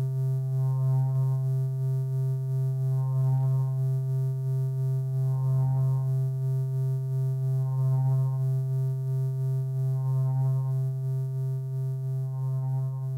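Modular synthesizer oscillators sounding a steady low drone with a stack of overtones, one oscillator patched into another, with a brighter swell in the sound a little over every two seconds. The level dips slightly near the end.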